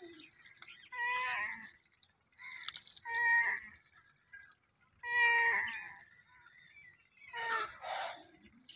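Orange tabby cat meowing four times, about two seconds apart, each meow a drawn-out call lasting about a second.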